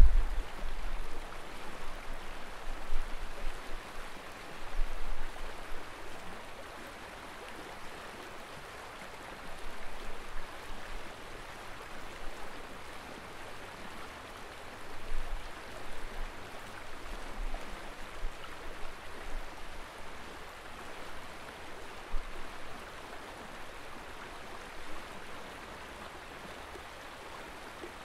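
Steady rush of a shallow river flowing over rocks and riffles, with brief low rumbles now and then, more of them in the first few seconds.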